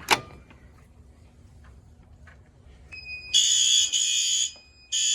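A sharp click as a pull-down single-action fire alarm pull station is pulled, then about three seconds later the fire alarm horn strobes blast twice, a longer blast and a shorter one, with a steady high beep sounding in the gap. The horns sounding briefly show the pull station signalling the panel in an audible walk test.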